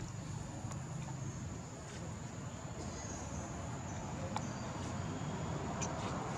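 Outdoor ambience: a steady, high-pitched insect drone over a low wind rumble, with a few faint clicks.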